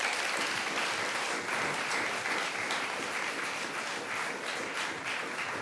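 Audience applauding steadily after a speech, easing off slightly near the end.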